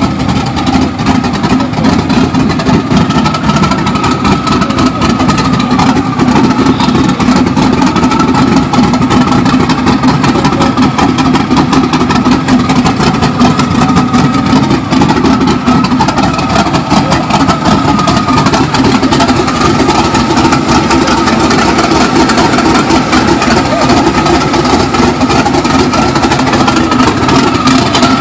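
Twin-turbo sand truck's engine idling, a loud, even running sound with a faint steady high tone above it.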